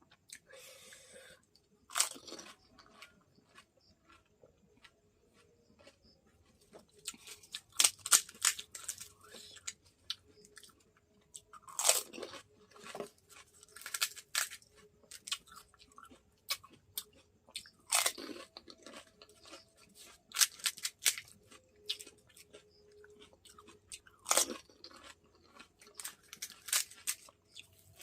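Crisp golgappa (pani puri) shells being bitten and chewed close to the microphone. Sharp crackling crunches come every few seconds, each louder bite standing out over quieter chewing.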